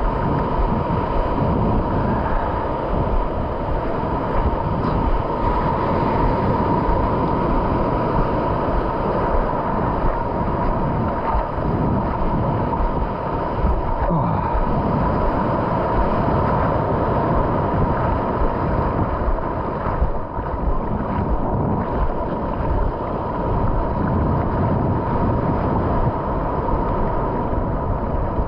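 Ocean surf washing in around the angler and the pier pilings, a steady rushing wash, with wind buffeting the microphone.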